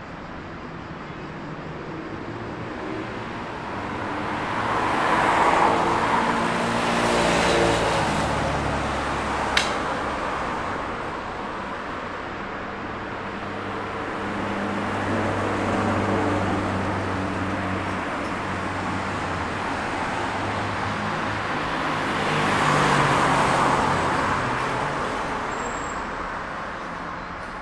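City road traffic with cars passing on a busy street. Two vehicles pass loudly, one about six seconds in and one near the end, and the first has an engine note that drops in pitch as it goes by. A lower engine drone runs through the middle, and there is a single sharp click about ten seconds in.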